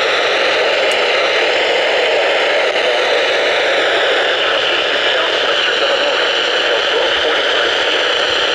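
Steady radio static hiss from a NOAA Weather Radio receiver, even and unbroken.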